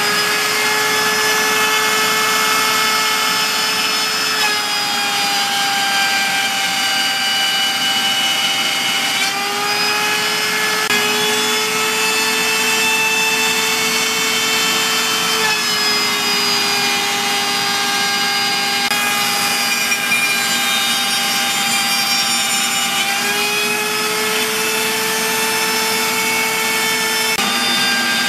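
A CNC router's spindle router running as its bit cuts slots in a hardwood board. The whine holds steady, shifting slightly in pitch every few seconds as the cut loads the bit, with a shop vacuum drawing the chips away through the dust shoe.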